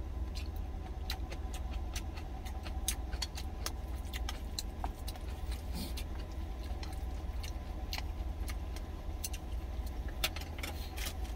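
Chopsticks clicking irregularly against a stainless steel lunch container, over the steady low hum of a truck's engine idling, heard inside the cab.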